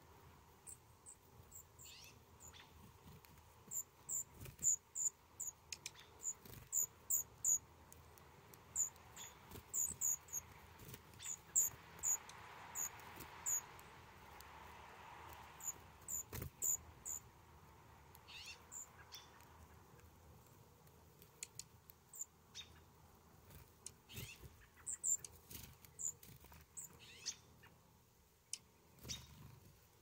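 Dark-eyed juncos giving short, very high chip calls, often two or three in quick succession, scattered through most of the clip and thinning out near the end.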